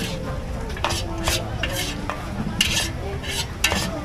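Long metal spatula scraping and knocking around a large steel wok, about eight quick strokes, with food sizzling in the hot pan as the last of a stir-fry is scooped out.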